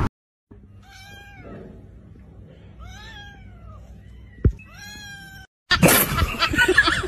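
A cat meowing three times, each meow rising and then falling in pitch, with a sharp click between the second and third. Near the end a louder jumble of noise cuts in.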